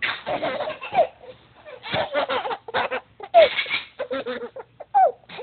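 Small children laughing hard at a fake sneeze, in repeated bursts of giggles broken by short pauses, with a few high sliding squeals.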